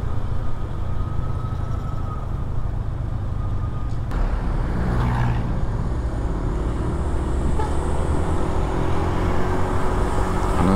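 Bus on the move: steady engine and road rumble, with a single click about four seconds in and an engine hum that comes up more clearly in the second half.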